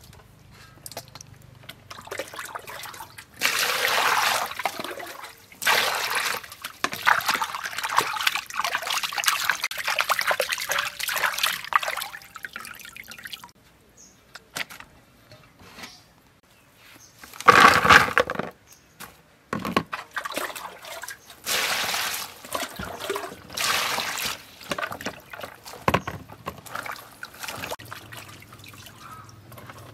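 Water pouring and splashing in bowls and a basin as fish is rinsed, in bursts: a long pour through the first half, a short loud splash a little past the middle, then another few seconds of pouring, with dripping and trickling in the quieter gaps.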